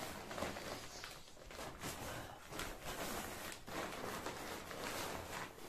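Forclaz inflatable sleeping mat being pressed and folded flat: its nylon fabric rustles and crinkles while air rushes out of the open valve in an uneven hiss.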